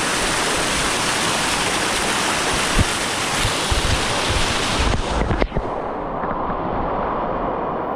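Waterfall rushing steadily, with a few low bumps of wind or handling on the microphone. A little over five seconds in the sound turns suddenly duller, losing its hiss.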